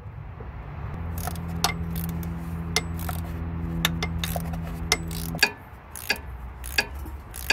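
Ratchet and socket working timing-cover bolts loose: sharp metallic clicks about once a second. A steady low hum starts about a second in and cuts off suddenly about five and a half seconds in.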